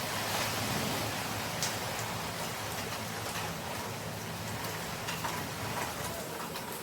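Heavy hurricane rain falling steadily, with a few single drips standing out as sharp ticks.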